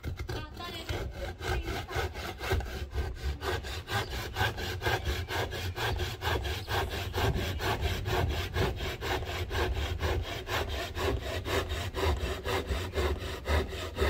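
Handsaw cutting through a 5×10 cm timber board by hand: steady back-and-forth strokes, about four to five a second, with the rasp of the rusty blade in the wood.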